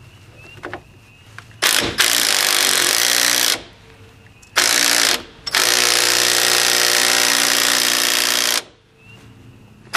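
Cordless impact wrench hammering on a 15 mm bolt, in three bursts, the last and longest about three seconds.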